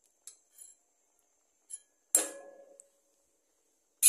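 Steel spoon and a black kadai clinking together: a few light ticks, then two loud metallic clanks about two seconds apart, each ringing briefly.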